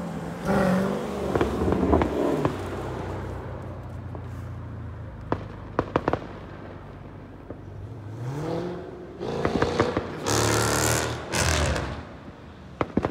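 A car engine revving repeatedly while the car spins donuts, the revs climbing and falling, loudest about ten to eleven and a half seconds in. A few sharp firecracker pops come about five to six seconds in and again near the end.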